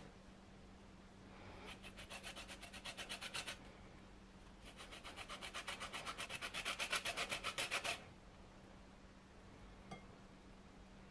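A lemon rubbed quickly back and forth over a flat stainless steel hand grater, zesting the peel, in two runs of fast grating strokes of about eight a second. The second run is longer and louder. A single faint tap comes near the end.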